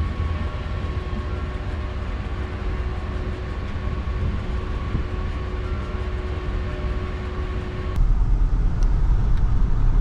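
A van running on the road: a steady low rumble with a faint constant whine. About eight seconds in it changes abruptly to a louder, deeper rumble.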